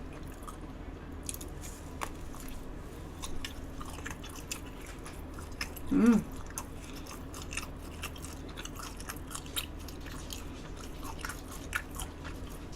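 Close-up mouth sounds of someone chewing and biting soondae (Korean blood sausage), with many small scattered wet clicks. A short hum about six seconds in.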